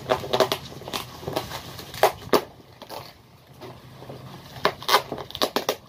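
Plastic packaging and bubble wrap crinkling and rustling in irregular handfuls as a boxed item is unwrapped, loudest about two seconds in and again near the end.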